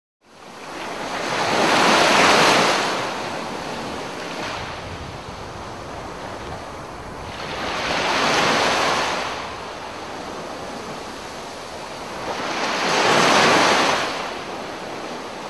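Small sea waves breaking on a sandy beach: three surges about five seconds apart, each swelling up and washing back, over a steady hiss of surf.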